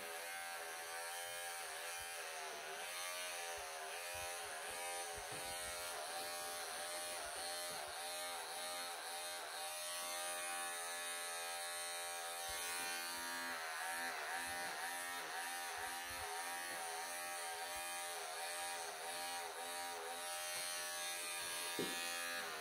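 Wahl professional electric pet clippers buzzing steadily while shaving a long-haired Persian cat's coat. The pitch dips slightly again and again as the blade works through the fur.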